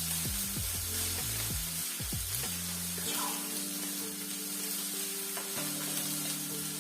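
Sirloin steak sizzling steadily as it sears in olive oil in a hot pan.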